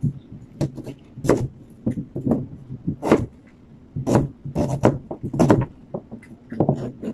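Kitchen knife chopping a red onion on a plastic chopping board: irregular sharp knocks of the blade hitting the board, about one or two a second.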